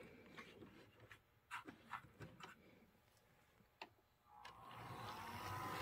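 A few faint clicks, then about four seconds in a Kato SD40 model locomotive's motor starts running with a quiet whine that rises in pitch and grows louder as the engine gets moving.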